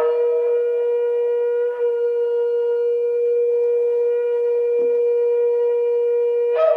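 A shofar (ram's horn) sounding one long sustained blast, a single steady note that cracks briefly higher as it starts and jumps up in pitch again near the end.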